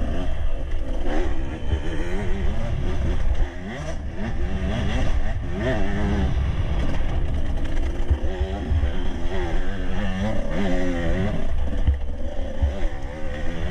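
Enduro dirt bike engine running under load, its revs rising and falling over and over as the throttle is opened and eased on a rough trail. There is a brief drop in engine noise a few seconds in.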